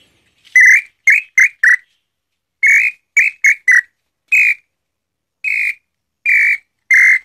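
A hand-made angico preto wooden bird-call whistle, a call for the nambu pé roxo (tataupa tinamou), blown in short clear notes. It plays a longer note and then three quick ones, repeats that group, and ends with four single notes spaced further apart.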